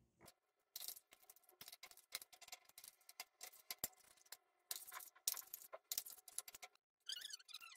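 Metal spoon stirring thick coconut-paste curry in a stainless steel kadai: faint, irregular clinks and scrapes of metal on metal, with a few longer scrapes along the pan.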